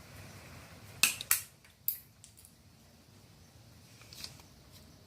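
Hand cutter snipping through wall-upholstery fabric track to make a 45-degree cut. There are two sharp snips about a second in, a third a moment later, and a fainter click near the end.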